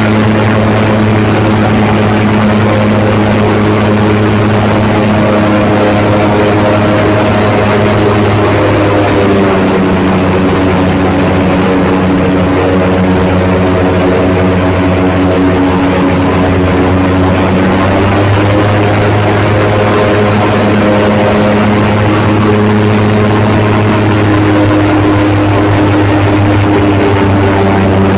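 Airboat's engine and air propeller running at speed, a loud steady drone. Its pitch dips slightly about nine seconds in and climbs back about halfway through.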